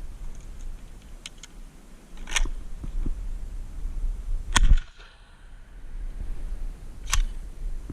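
A Stoeger P3000 12-gauge pump shotgun fired once, a sharp bang about halfway through, with a few lighter sharp clacks before and after it.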